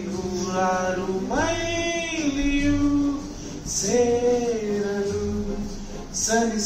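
A man singing a melody of long held notes into a handheld microphone, sliding between pitches.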